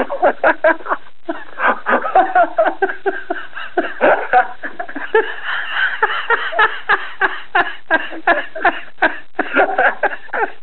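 Two people laughing at length after a joke, in quick, repeated pulses of laughter.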